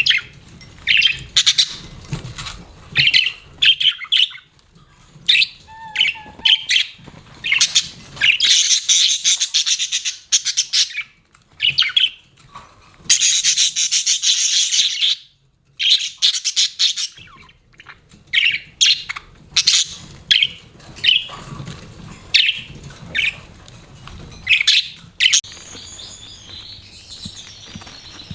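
Budgerigars chirping and chattering, in short chirps and longer warbling runs with brief pauses.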